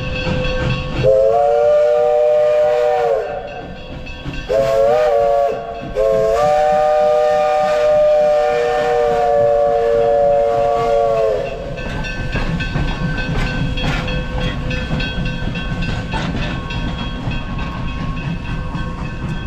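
Steam locomotive's chime whistle blown three times: a long blast, a short one, then a long held blast, each a chord of several tones that sags slightly in pitch as it starts and stops. After that, steady train noise carries on.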